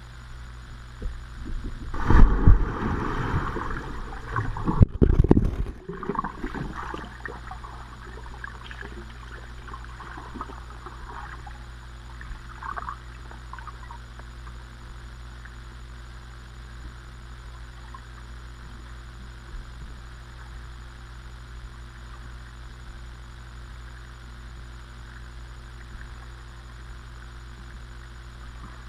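Underwater sound muffled through a GoPro's waterproof housing: a steady low hum, with two loud bursts of water movement and bumping against the housing about two and five seconds in, then fainter crackles that die away.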